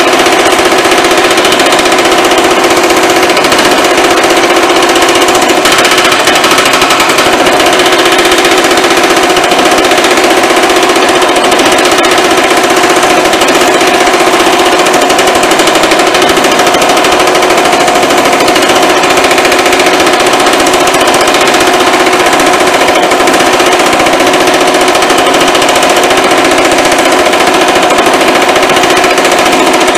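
Baileigh MH-19 power hammer running nonstop, its linear stretching dies hammering rapidly on a sheet-metal panel to stretch it into a reverse curve. A loud, fast, even rattle of blows with a steady ringing tone underneath.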